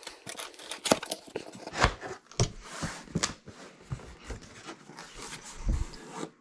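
Packaging being handled and pulled open by hand during an unboxing: irregular rustling and crinkling with scattered sharp knocks and clicks.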